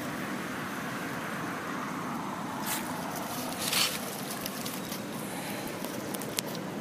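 Dry fallen leaves crackling in brief bursts as a young long-tailed macaque pulls at them, the loudest about four seconds in, over steady outdoor background noise, with one sharp click near the end.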